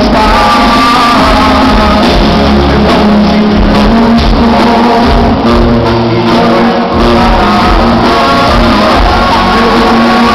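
Live regional Mexican band music with a singer, played loud over a concert PA and heard from among the audience.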